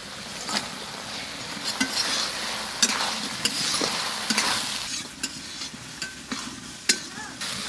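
Spiced gravy sizzling in a metal kadai as fried koi fish (climbing perch) are stirred in with a metal ladle, the ladle knocking against the pan about once a second.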